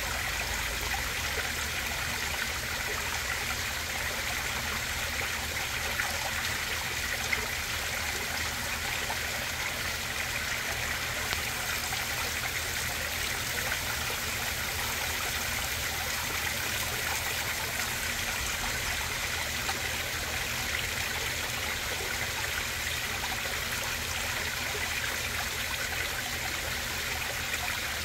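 Water running steadily into a koi pond, a constant trickling stream.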